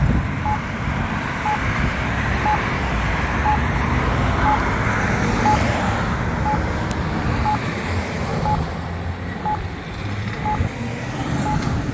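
Crosswalk push-button's locator tone: a short beep about once a second, which marks the button while the signal is still at wait. Steady traffic noise runs underneath from passing vehicles.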